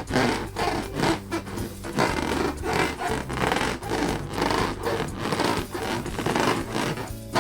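Latex balloons being rubbed and squeezed by hand: a run of irregular rubbing strokes, a few a second.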